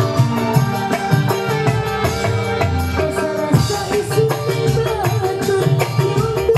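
Live dangdut band music: a hand drum (kendang) beats a quick, steady rhythm under an electronic keyboard melody.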